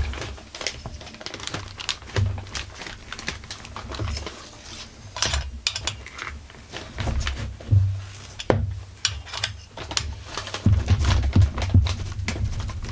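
Metal wrenches clinking and knocking against the Husqvarna 44 chainsaw's flywheel nut and drum clutch as they are worked loose, in irregular sharp clicks with low handling thumps.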